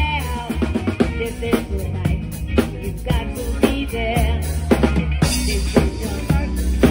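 Live funk and R&B band playing, with the close-by drum kit loudest: a steady kick, snare and rimshot groove over electric bass guitar and keyboard.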